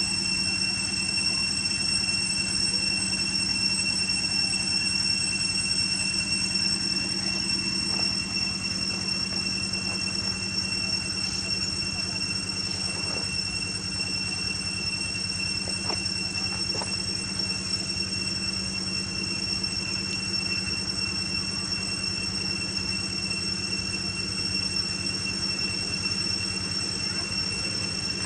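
A steady, high-pitched whine held on one pitch throughout, over a constant low hum and a faint hiss, with a few faint brief ticks.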